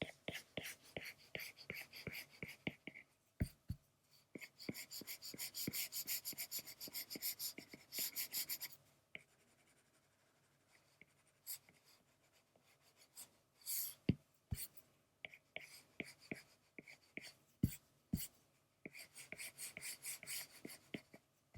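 Quick, scratchy back-and-forth shading strokes on a drawing surface, in bursts, with a dense run of fast strokes and a pause of a few seconds partway through.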